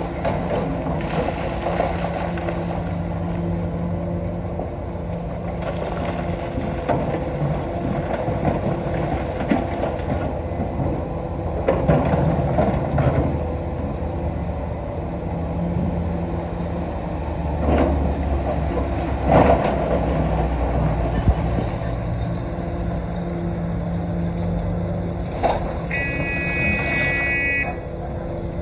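Komatsu PC220-6 excavator's diesel engine running under changing hydraulic load while it digs stone, with several sharp clanks of rock and bucket. A horn sounds for about two seconds near the end.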